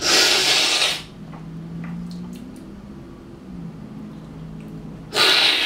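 Two loud, hissing slurps of brewed coffee sucked hard off a cupping spoon: a cupping slurp that is meant to be heard. The first lasts about a second, and a second, shorter one comes about five seconds in.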